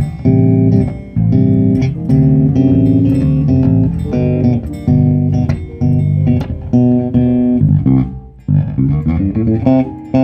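Electric bass guitar playing a line of separate plucked notes. About eight seconds in it stops briefly, then comes back with a quicker run of notes.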